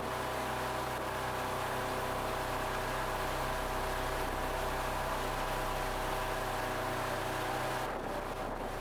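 Zodiac inflatable's outboard motor running at a steady cruising speed, with a continuous hiss of wind and water over it that thins a little near the end.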